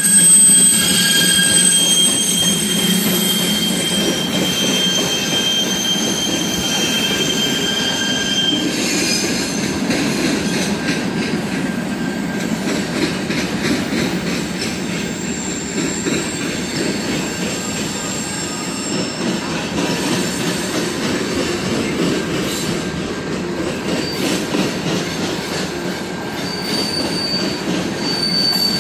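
Freight cars of a long freight train rolling past, their steel wheels rumbling steadily on the rails. Thin high-pitched wheel squeals ring over the rumble in roughly the first third, fade out, and a fainter squeal returns near the end.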